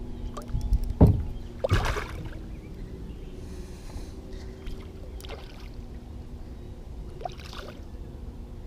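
Water and handling sounds on a kayak while a hooked bass is fought: a sharp knock about a second in and a splash just before two seconds, then quieter sloshing and small knocks.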